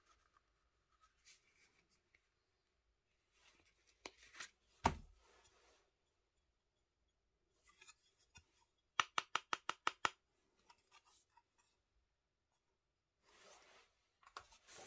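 Hands handling a vegetable-tanned leather card wallet and a card: soft rubbing and sliding of leather, a single thump about five seconds in, and a quick run of about ten sharp clicks a little after the middle.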